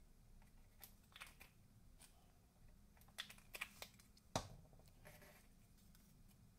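Faint handling of cardstock craft pieces on a table: scattered light clicks and paper rustles, with one sharper tap a little past four seconds in.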